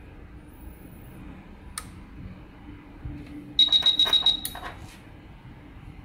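A push button clicks once about two seconds in. Near four seconds there is a high-pitched electronic beep of about a second, with rapid clicking running through it, from the digital timer controller as its outputs switch between the two loads.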